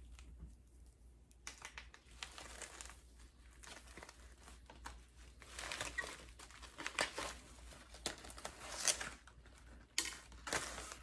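Rustling and crinkling as a lace-front wig is handled and turned over, in irregular bursts.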